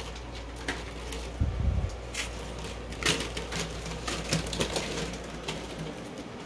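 Footsteps and handling of the phone as it is carried: scattered light clicks and knocks, with a low thump about a second and a half in.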